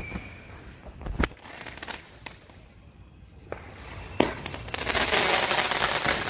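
Consumer fireworks going off: scattered sharp bangs over the first few seconds, then a dense crackle of many rapid pops from about five seconds in.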